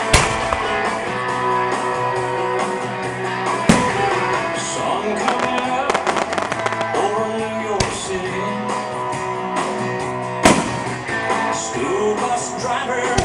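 Aerial firework shells bursting, four sharp bangs spaced a few seconds apart, over steady music with guitar.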